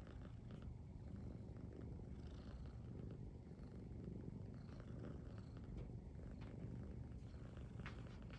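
Domestic cat purring in a low, steady rumble as a young cat suckles at an adult cat. A few faint clicks come through now and then, the clearest just before the end.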